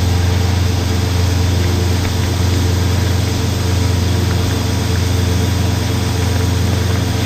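An engine or machine running steadily with a constant low hum, at an even idle with no change in speed.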